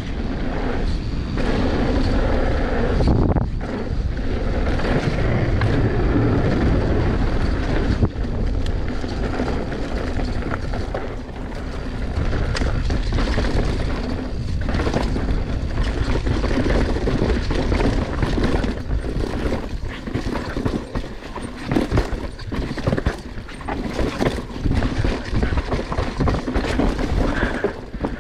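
Mountain bike riding down a bike-park trail: a steady rush of wind on the microphone with the bike rattling and knocking over bumps and landings. The knocks come thicker in the second half.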